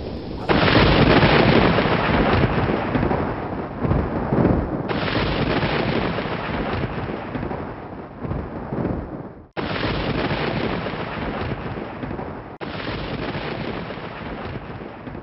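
Thunder: four thunderclaps one after another, each starting sharply and dying away slowly. The first, about half a second in, is the loudest; the others come near five, ten and twelve and a half seconds.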